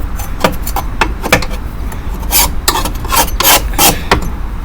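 Scraping caked dead grass off the underside of a lawn mower deck: a run of short, irregular scraping strokes, about three a second.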